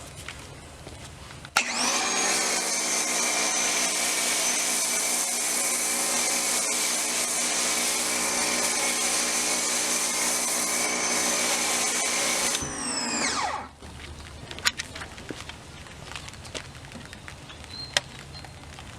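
Ryobi 1600 psi electric pressure washer switching on about a second and a half in and running steadily, pumping water through an MATCC foam cannon with a hiss of spray. About twelve seconds in it shuts off and its motor winds down, falling in pitch.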